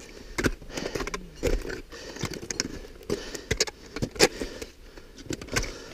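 Irregular clinks and knocks of a climber moving over rock on a rope: metal climbing gear jangling and boots scuffing on stone.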